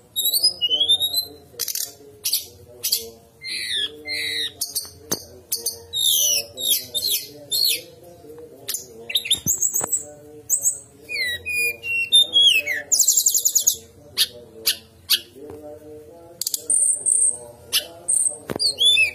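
Brown-chested jungle flycatcher singing a fast, varied song of short whistled glides, sharp clicking notes and a quick high trill, phrase after phrase.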